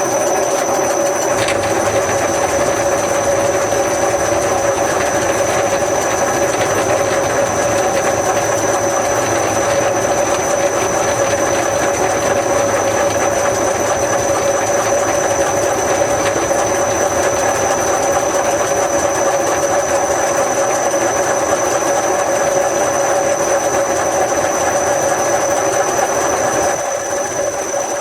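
A machine running steadily, with a constant hum and a thin high whine over a noisy mechanical wash; it eases off slightly near the end.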